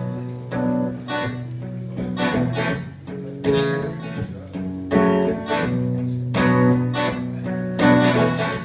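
Guitar playing the intro to a slow blues song, a series of strummed chords that begins sharply at the start.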